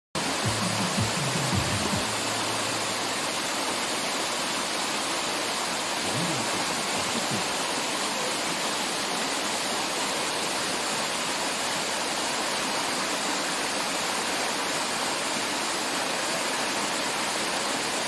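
A tall waterfall, about 45 m high, giving a steady, unbroken rush of falling water.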